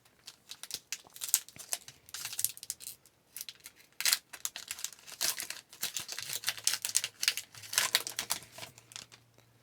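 A trading-card pack wrapper being torn open and crinkled, with the cards inside handled, in irregular crackles and ticks.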